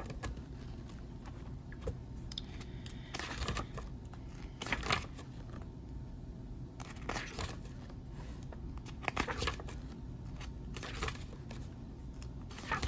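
Pages of a paperback book being turned by hand, a short paper rustle every second or two.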